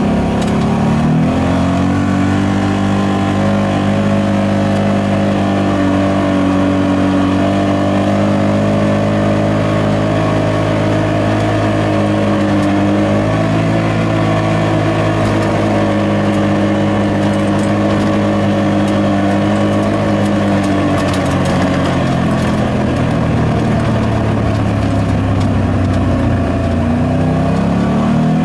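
Side-by-side UTV engine running under way at a steady pitch. It rises about a second in, dips briefly near the middle, and eases off then picks up again near the end.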